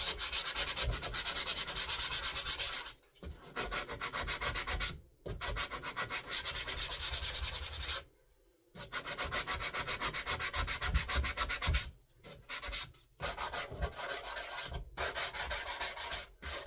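220-grit sandpaper on a sponge rubbed quickly back and forth over dried wood filler, several scratchy strokes a second, sanding the filler down smooth. The strokes come in bouts with short pauses, loudest in the first few seconds.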